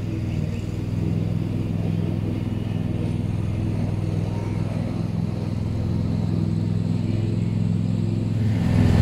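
Husqvarna TC238T garden tractor running steadily while mowing, its engine and cutting deck working under load. The sound gets louder near the end.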